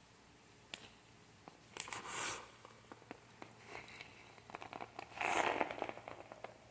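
Newspaper rustling and crinkling, with small clicks of loose sago pearls being handled around a glued bottle. There are two louder rustles, about two seconds in and about five seconds in.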